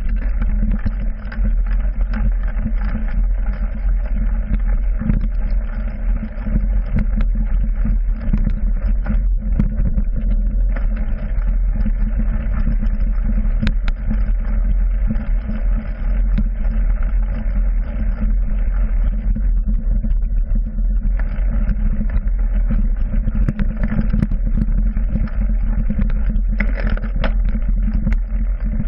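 A mountain bike ridden over a rough forest trail, heard from a handlebar-mounted camera: a steady rumble with constant rattles and knocks from the bike jolting over the ground.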